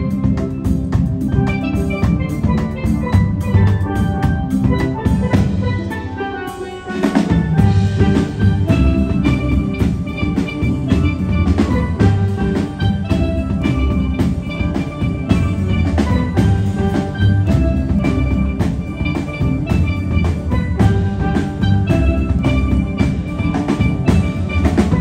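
Steel pan ensemble playing a tune, many pans struck in quick rhythm over a steady low line. About six seconds in the low notes drop out for a moment, then the full band comes back in.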